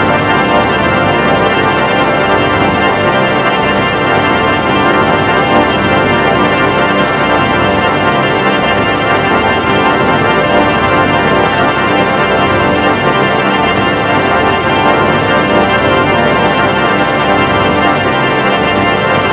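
A loud, steady electronic drone made of many stacked tones, like a held organ chord, running without change.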